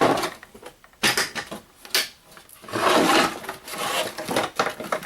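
Plastic casing of a snap-fit LCD monitor being pried and worked apart by hand: irregular scraping and creaking with a sudden sharp snap about a second in.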